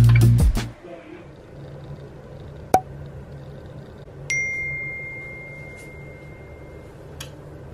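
A single electronic notification chime: a bright ding that starts suddenly a little past the middle and rings out, fading, for about two and a half seconds. A sharp click comes a second and a half before it, and guitar music fades out in the first second.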